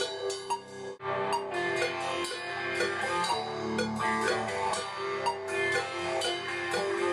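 Stoner rock band playing: electric guitar with drum kit. The sound drops out sharply for an instant about a second in, then the music carries on.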